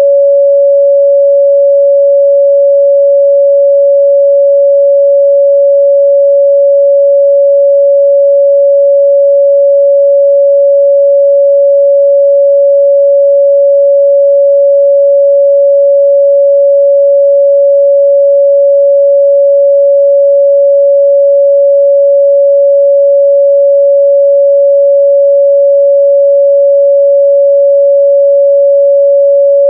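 A pure 562 Hz sine-wave test tone, held steady and loud at one unchanging pitch, for checking the midrange response of speakers and headphones.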